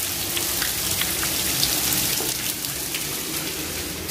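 Heavy rain falling steadily: an even hiss with the ticks of single drops landing close by.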